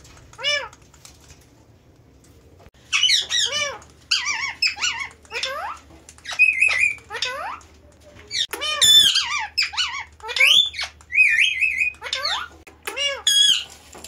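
Indian ringneck parakeets squawking: one call about half a second in, then from about three seconds in a rapid run of sharp squawks and chattering chirps.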